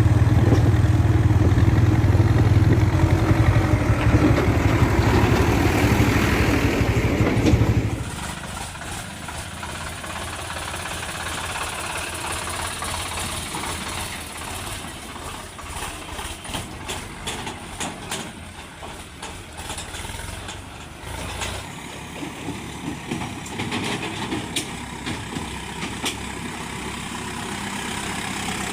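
Heavy diesel machinery engine running loud under load for about eight seconds, then dropping suddenly to a quieter engine sound with scattered clanks and knocks.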